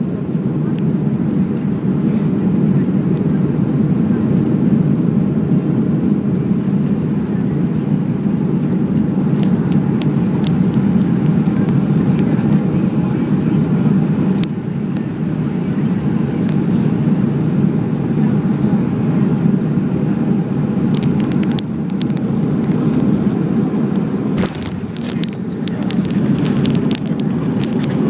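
Cabin noise of a Boeing 737-400 on final approach: a steady, loud rush of its CFM56 jet engines and airflow heard through the cabin, with a few brief rattles in the last several seconds.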